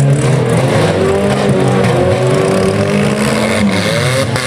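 Engines of stock compact cars revving and running under load in a demolition derby, the pitch drifting up and down, with one engine's revs falling away near the end.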